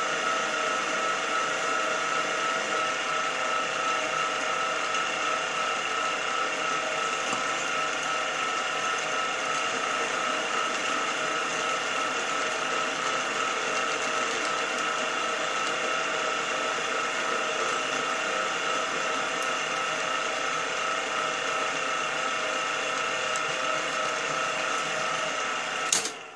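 Small vertical mill head running at its lowest spindle speed, 420 RPM, while a reamer is hand-fed through the piston valve's drive-pin hole: a steady machine hum with several fixed pitches. It stops abruptly with a click near the end.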